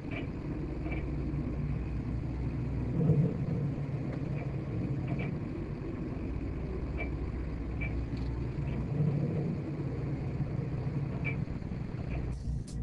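Inboard engine of a 1974 Gulfstar 44 motor sailor running steadily under way, a low rumble with faint scattered ticks, breaking off briefly near the end.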